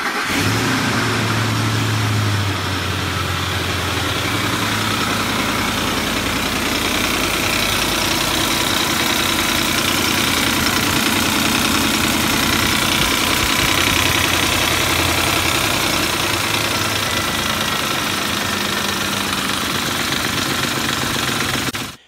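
Ford 5.4L three-valve Triton V8 running just after being started, a little fast for the first two seconds or so before settling to a steady idle, with a really loud grating, chain-type noise from inside the engine. New timing chain guides, tensioners and cam phasers have not cured the noise, and metal glitter on the dipstick shows metal-on-metal wear inside.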